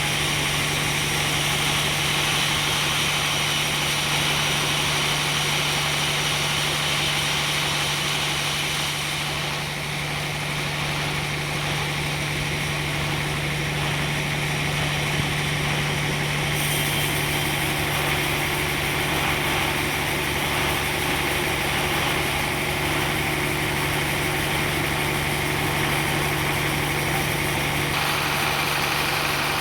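Sawmill machinery running with a steady, unbroken hum and hiss; the higher hiss shifts abruptly a few times.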